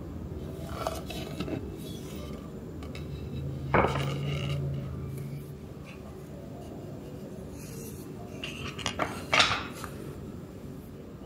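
Light knocks of wood on wood as a wooden serving tray is set down on a wooden tabletop, one sharp knock about four seconds in. Small wooden coasters are then clacked onto the tray, several quick taps around nine seconds in, the loudest of them near the end.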